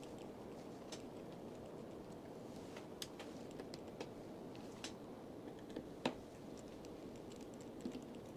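Precision Phillips screwdriver and tiny screws working on a smartphone's internal metal cover plate: scattered light clicks and ticks, the sharpest about six seconds in, over a faint steady hiss.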